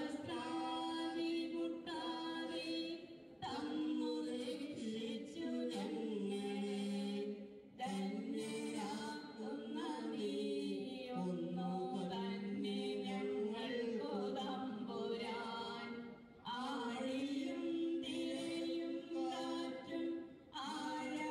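Singing in long, held melodic phrases, with short breaks between phrases every few seconds.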